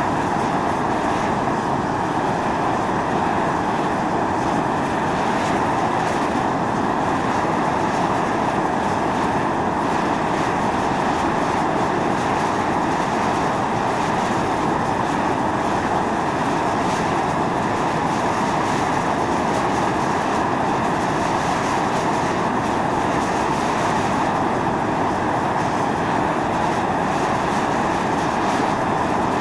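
Volcanic fumarole on Atosanupuri (Mt. Io) venting steam: a steady, unbroken hissing rush of gas.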